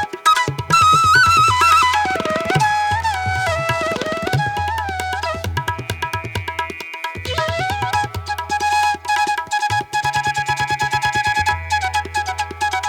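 Background music in an Indian instrumental style: tabla-like drum strokes and a low bass under a melody that slides between notes.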